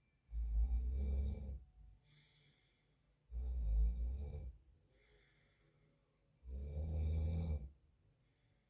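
A man snoring in his sleep: three low snores, each lasting a little over a second and coming about every three seconds, with quiet breathing between them.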